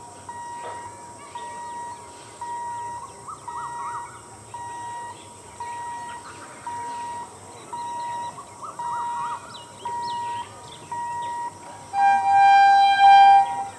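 Electric multiple unit (EMU) local train's horn sounding loudly near the end: a short blast, then a longer one. Before it there is a steady electronic beep repeating about one and a half times a second, with birds chirping.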